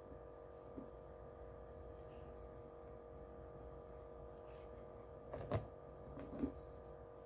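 Faint steady hum of a quiet room, broken by two short, soft knocks about five and a half and six and a half seconds in, the first the louder.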